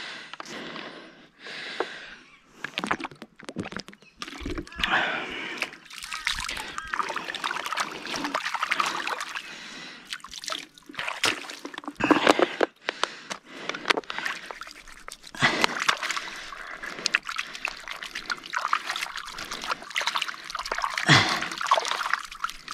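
Hands splashing and rubbing in a shallow muddy puddle to wash off mud: irregular sloshing and small splashes, with sharper splashes about twelve and twenty-one seconds in.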